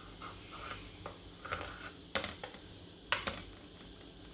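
Metal spoon scraping and clicking against a stainless-steel idli plate as steamed idlis are prised out of their moulds: soft scrapes, then a few sharp light clicks in two pairs about two and three seconds in.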